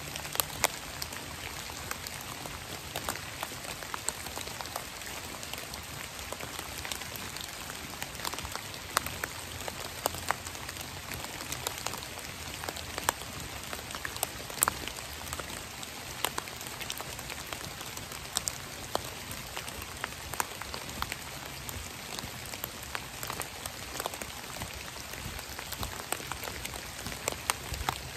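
Rain pattering on dead leaves and the woods around: a steady hiss with many single drops ticking sharply at irregular intervals.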